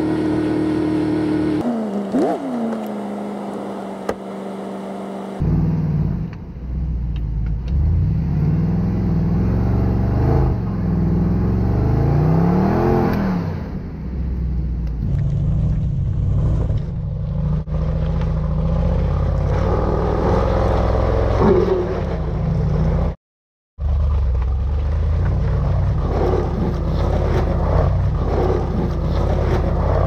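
Range Rover Sport engine revving off-road, its pitch rising and falling in several runs as the SUV works through mud and up a rocky slope. The sound drops out for half a second about two-thirds of the way through.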